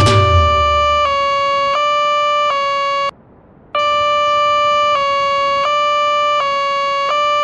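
Electronic level-crossing warning tone from an animated crossing: a steady, buzzy synthesized tone alternating between two close pitches about every 0.7 seconds. It cuts out for about half a second around three seconds in, then resumes.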